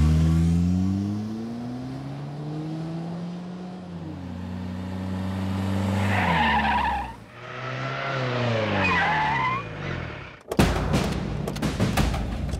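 SUV engines accelerating and then slowing, with tyres squealing twice as the vehicles brake hard to a stop. Near the end a sudden dense rush of noise with sharp hits takes over.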